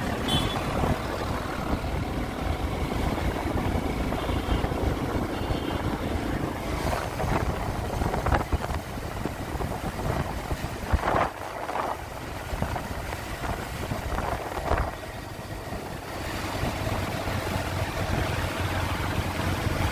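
Steady low rumble of a motor vehicle, with wind noise on the microphone.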